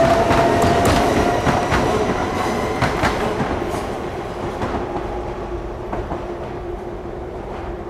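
Electric multiple unit passing and pulling away, its wheels clicking over rail joints during the first few seconds, the sound fading steadily as it recedes, with a steady whine left near the end.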